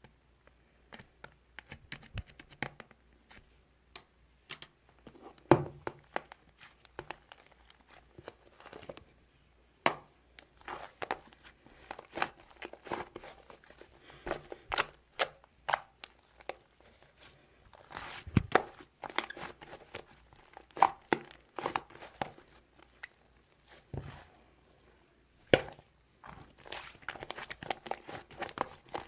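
Soft, squishy dough being squeezed, poked and stretched by hand, giving irregular crackles, little pops and crinkly tearing sounds in clusters.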